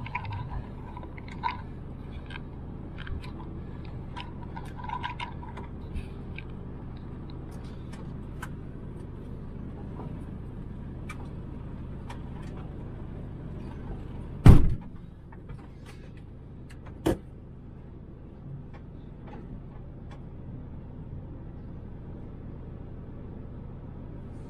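Mercedes-Benz Actros truck's diesel engine idling steadily, heard inside the cab, with small clicks and knocks as the driver moves about. One heavy thump comes about halfway through and a sharp knock a couple of seconds later.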